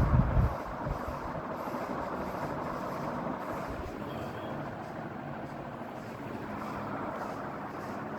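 National F-EY-149-1 ceiling fan running with 56-inch blades: a steady rush of moving air over the motor's noise, with a few low thumps in the first half second.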